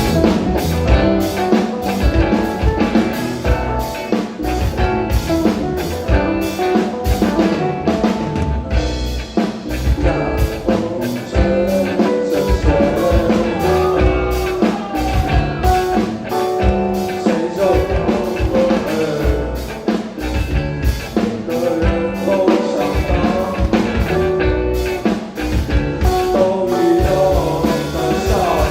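A live rock band playing, with drum kit, bass and guitars, and singing in parts.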